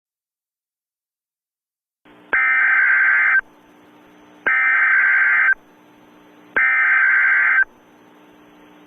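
Emergency Alert System SAME header: three identical, harsh digital data bursts of about a second each, sent about a second apart, marking the start of a new alert. A faint hum runs between the bursts.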